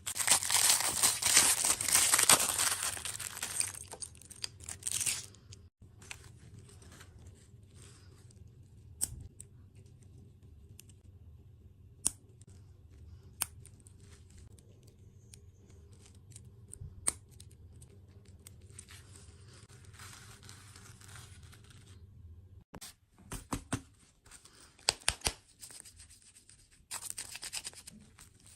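Dessert packaging being torn open and crinkled by hand. The loudest tearing and crackling comes in the first few seconds, then scattered clicks and soft crinkles, with more crinkling near the end.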